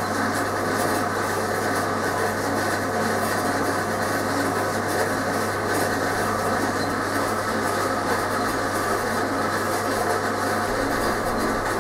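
Bandsaw running steadily, a constant hum with a whine, with light rubbing of foundry sand and wood as a mould is rammed up by hand.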